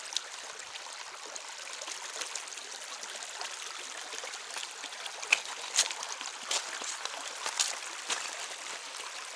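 Small creek trickling and running over rocks, a steady rush of water, with several sharp clicks in the second half.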